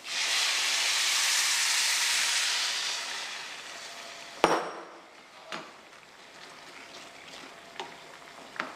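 Coconut milk poured into a hot, dry pan of frying curry, setting off a loud sizzle that starts suddenly and dies away over about three seconds. About four and a half seconds in comes a single sharp knock, followed by a few light taps of a wooden spoon stirring in the pan.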